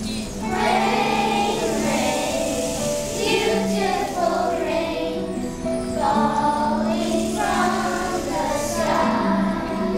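A children's choir singing with instrumental accompaniment. The voices come in about half a second in, over steady held notes from the backing.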